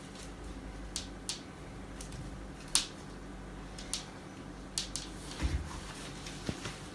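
A large sheet of slime being stretched and swung through the air gives scattered faint sticky clicks and snaps, the loudest a little under three seconds in. A dull thump comes about five and a half seconds in.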